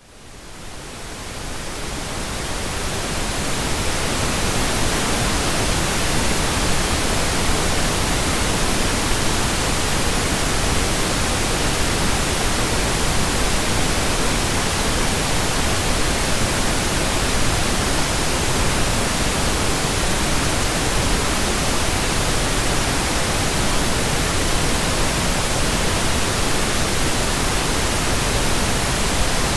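Synthetic pink noise: a steady, even hiss across the whole range that fades in from silence over the first few seconds, then holds level.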